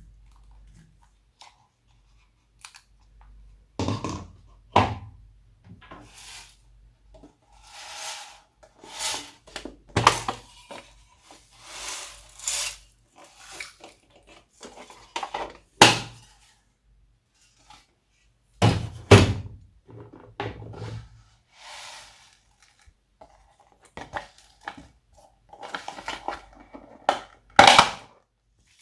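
Glossy slime being worked by hand and mixed with things added into it: irregular sticky squelches and crackles, broken by sharp knocks and clacks against its container, the loudest about four, nineteen and twenty-eight seconds in.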